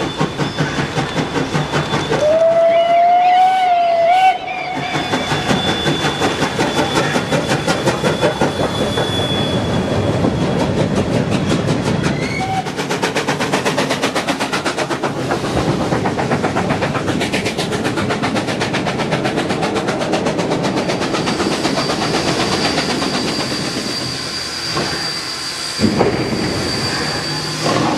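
Steam locomotive sound accompanying an HO-scale model steam engine hauling freight wagons: steady, fast, even chuffing throughout, with a whistle blast about two seconds in that lasts about two seconds and rises slightly in pitch. A short sharp knock near the end.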